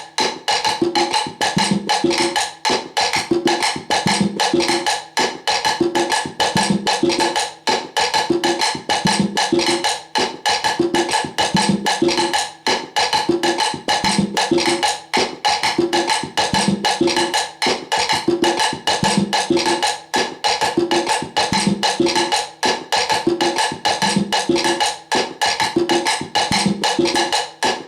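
Salsa cascara pattern played in steady clicking strokes on a hard wooden surface, over low hand-drum tones in a conga part, the whole pattern repeating about every two and a half seconds.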